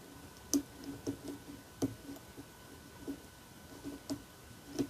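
Small, irregular clicks and ticks from a lock pick working the pin-in-pin tumblers inside a Multi-Lock Classic cam lock, about eight over a few seconds. These are the light clicks of pins being lifted and setting under tension.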